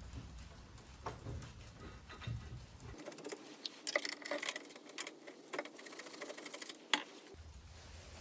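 Light clicks, taps and rattles of small metal hardware, bolts and brackets, being handled and fitted by hand. The clicks come thickest in the middle stretch.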